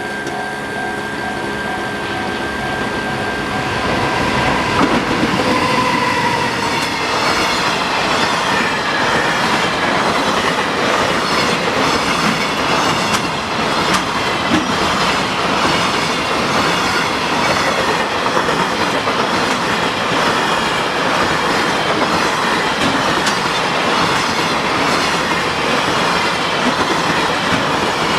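A level-crossing warning bell rings for the first few seconds. Then a freight train hauled by a JR Freight EF200 electric locomotive passes close by, its wagon wheels clacking steadily over the rail joints with some wheel squeal.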